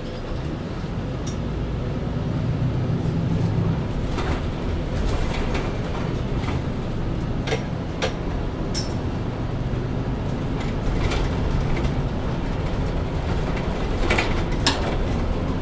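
Diesel engine of a 2020 MAN Lion's City Ü (A20) city bus running steadily, its hum growing stronger for a couple of seconds early on, with scattered sharp clicks and knocks, several of them near the end.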